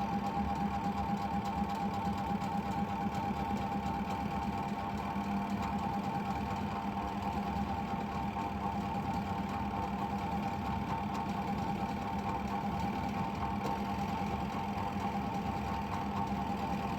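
Washing machine spin motor humming steadily, a spinner motor with capacitor problems.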